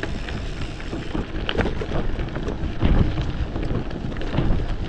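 Wind buffeting an action-camera microphone as a Kross Esker gravel bike rolls over rough ground, with a steady rumble and occasional knocks from bumps.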